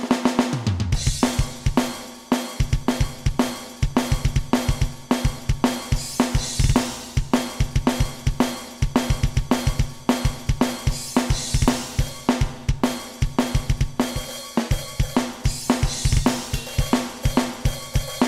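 Alesis Nitro Mesh electronic drum kit triggering custom sampled drum sounds, recorded direct through an audio interface rather than off the pads. It plays a fast groove with rapid kick drum strokes under snare, toms and hi-hat, and crash accents about every five seconds.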